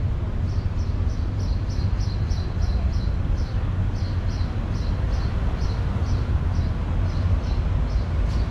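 Steady low rumble of city traffic, with a small bird chirping over it in quick high notes, about three a second, pausing now and then.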